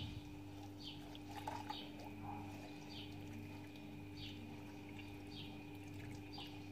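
Faint wet squishing of hands rubbing a chermoula herb marinade into a raw whole chicken, over a steady low hum, with short high chirps every second or so.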